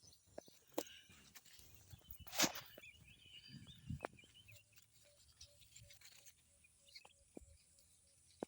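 Outdoor rural ambience: scattered rustles and clicks, with one louder rustle a couple of seconds in and faint bird chirps. From about halfway in, a faint short call repeats about three times a second.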